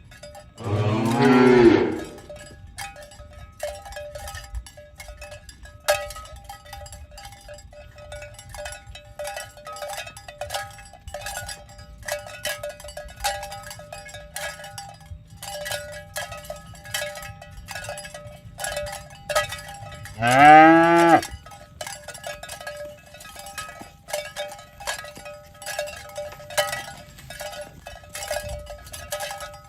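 Cattle mooing, two long loud moos, one about a second in and one about twenty seconds in, over a continual irregular clanking of ringing metal from the moving herd.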